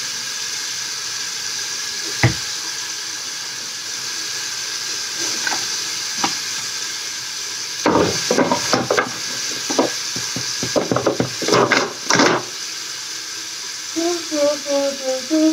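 Bathroom sink tap running: a steady hiss of water. A flurry of clicks and knocks comes between about 8 and 12 seconds in, and a few hummed voice sounds come near the end.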